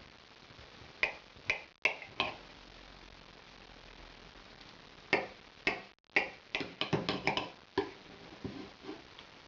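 Kitchen knife cutting through set pork aspic on a glass plate, with sharp clicks and taps as the blade meets the plate: a few spaced clicks at first, then a quicker run of them past the middle.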